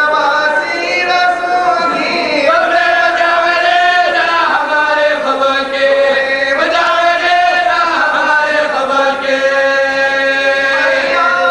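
Group of men chanting a marsiya, an Urdu elegy, in unison without instruments. The voices hold long, wavering notes that glide from one pitch to the next.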